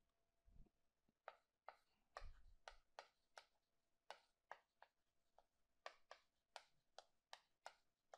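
Chalk writing on a chalkboard: a dozen or more faint, irregular taps and short scrapes as the strokes of the letters are made.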